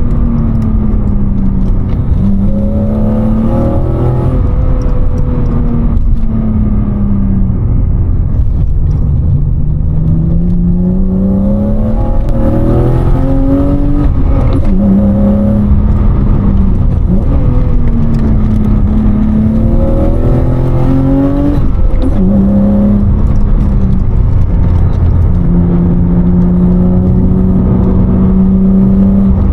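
BMW E36 325i's M50B25 straight-six with a Supersprint race exhaust, heard from inside the cabin with the windows up while driving. The engine note rises and falls several times as the car speeds up and slows, then holds steady near the end.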